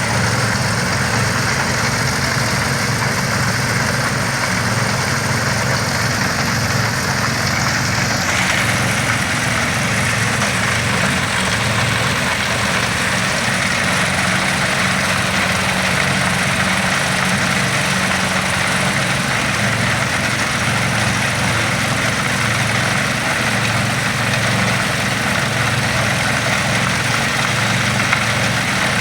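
Heavy loader's diesel engine running steadily at idle, a low even hum under a constant mechanical hiss that changes character about eight seconds in.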